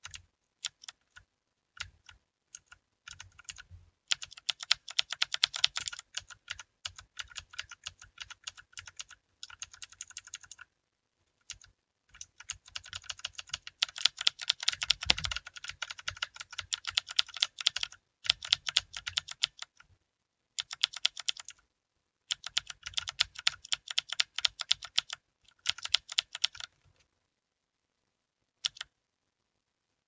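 Typing on a Redragon mechanical gaming keyboard. A few single keystrokes are followed by fast runs of key clicks a few seconds long, broken by short pauses, and one last keystroke comes near the end.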